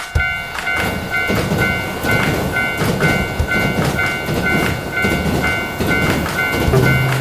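Railroad crossing bell ringing a steady kan-kan about twice a second while a train passes, its wheels rumbling and clattering over the rail joints.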